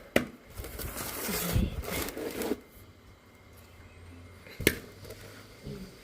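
Close handling noise of wet potato slices being spread by hand on a bamboo winnowing tray: rustling and scraping for about two and a half seconds, then a quieter stretch with a low hum. A sharp click comes just after the start and another a little before the end.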